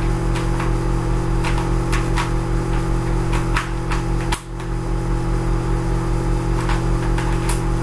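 Rubik's Cube layers turned rapidly by hand, giving quick irregular plastic clicks, over a loud steady low hum.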